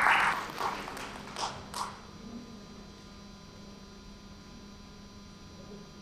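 Audience applause fading out just after the start, with a few last scattered claps over the next second or so, then a steady electrical hum.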